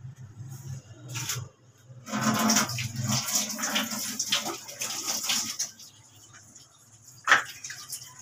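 Water running from a tap and splashing into a sink while hands are washed under it, tapering off after about six seconds, with a single sharp knock near the end.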